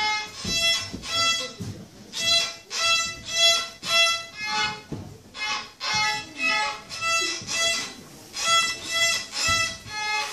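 A small violin played by a young beginner, bowing a simple fiddle tune in separate, evenly spaced notes, about two a second, with short breaks between the bow strokes.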